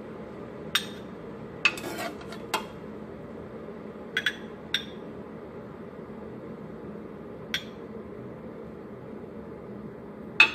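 Metal ladle clinking against a cooking pot and a ceramic bowl while braised quail eggs are scooped out: a run of irregular sharp clinks, several in the first five seconds, one near eight seconds and the loudest near the end, over a steady low background noise.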